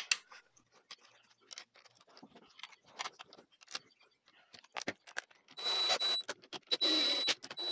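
Small metal clinks of bolts and sockets being handled, then about five and a half seconds in, a cordless DeWalt impact driver runs a bolt into the gearbox casing in two short bursts with a steady motor whine, a third burst starting at the very end.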